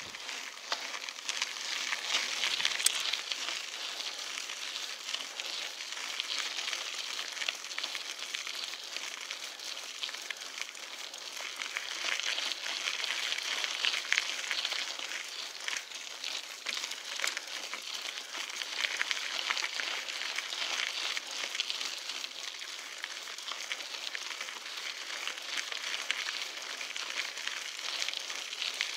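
Mountain bike tyres rolling over a gravel dirt road: a steady crackling crunch of grit under the tread.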